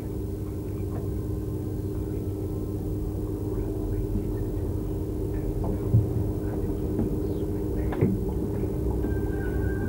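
Steady electrical hum and low rumble on a deteriorated old videotape soundtrack, with two short knocks past the middle and a higher steady tone coming in near the end.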